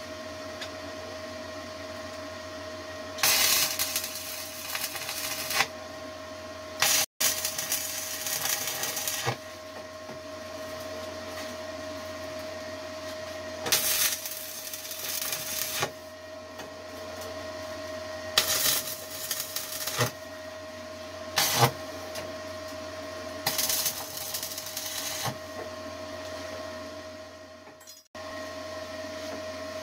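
Stick-welding arc from a Forney 100ST running a 3/32-inch 6013 rod at 75 amps on 1/8-inch steel plate, crackling in several separate passes of about one to two and a half seconds each. A steady hum lies underneath.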